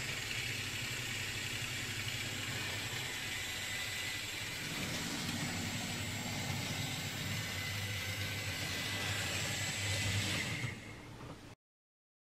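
Hobbytrain Duwag N-scale model tram running on Kato Unitrack: a steady small-motor whine, a thin high tone over a low hum, with wheel noise on the track, cutting off suddenly near the end.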